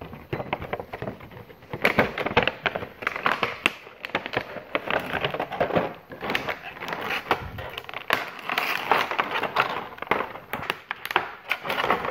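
Clear plastic blister tray crinkling and crackling as it is handled, with many small clicks, while an action figure and its accessories are worked out of it.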